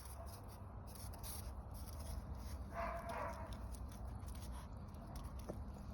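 A small dog, a Yorkshire terrier, gives one short whine about halfway through.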